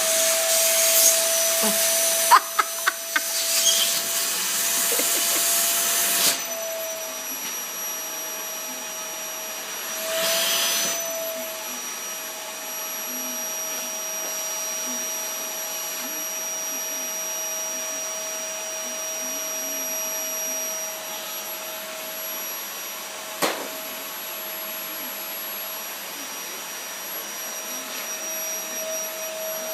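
Vacuum cleaner running with a steady whine, its rushing airflow louder for the first six seconds and again briefly around ten seconds. A few sharp clicks come about two to three seconds in, and a single knock comes near twenty-three seconds.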